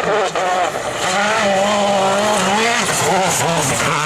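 Rally car engine revving hard on a stage, its pitch rising and falling repeatedly with throttle and gear changes, with a few sharp cracks near the start.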